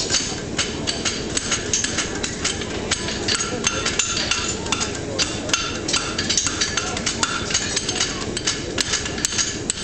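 Several farriers' hammers striking horseshoes on steel anvils at once: an irregular clatter of ringing metallic blows, several a second, overlapping from different anvils, over a steady low background noise.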